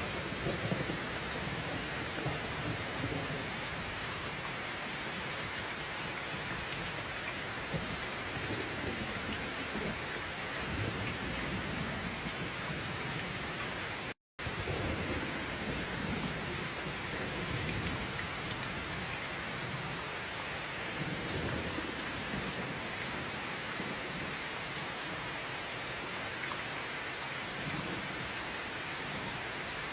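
Steady heavy rain with low thunder rumbles swelling and fading several times. The sound cuts out completely for a split second about halfway through.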